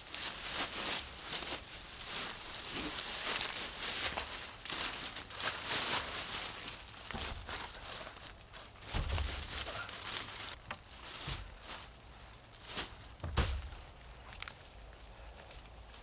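Footsteps and shuffling through deep dry fallen leaves as dead logs are handled and laid onto a log wall, with a few sharp knocks and low thuds of wood; the rustle is busiest in the first half and two heavier thuds come about nine and thirteen seconds in.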